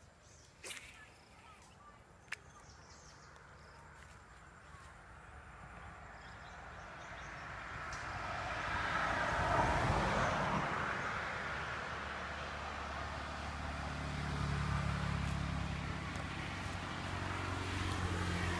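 A motor vehicle passes on the road: its noise swells to a peak about ten seconds in and then eases, and from about thirteen seconds a low engine hum stays on. Two short clicks come near the start.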